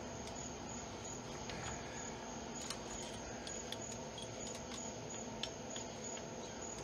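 Scattered light clicks and taps of hand tools on engine parts during a cylinder head teardown, over a steady background hiss.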